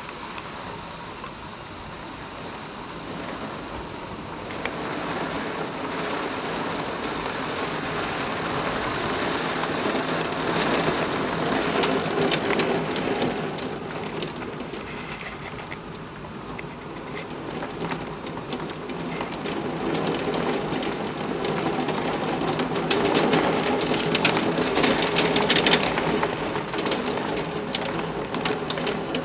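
Heavy rain mixed with hail pelting a window and its ledge, the hailstones hitting as sharp clicks over the rushing downpour. The storm builds, loudest about a third of the way in and again near the end.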